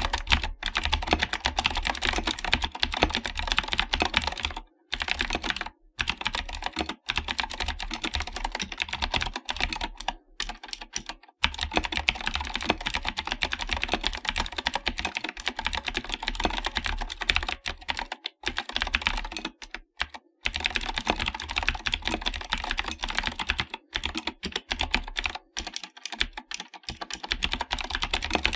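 Continuous fast typing on an AKKO 3084 mechanical keyboard fitted with clicky Akko blue switches of the Cherry Blue type: a dense run of key clicks broken by a few brief pauses.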